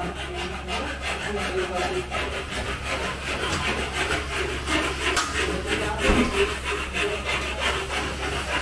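Quick, even back-and-forth rasping strokes of a hand tool worked against a hard material, like a saw or file, during aluminum cabinet installation work, with a louder knock about six seconds in.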